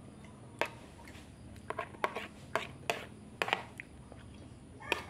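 Metal spoon clinking and scraping against a plastic plate while eating, a string of light irregular clicks.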